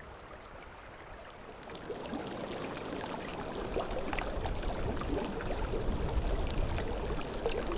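Water trickling and bubbling, with many small pops and ticks. It fades in about two seconds in and slowly grows louder.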